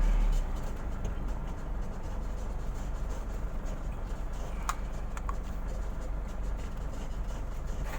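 Steady low rumble under a background hiss, dropping a little just after the start, with a few sharp clicks about halfway through.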